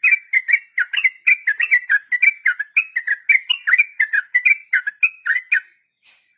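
Yellow-vented bulbul (trucuk) singing a long rapid 'ropel' song: a quick run of bubbly, warbling whistled notes, about four a second, breaking off near the end.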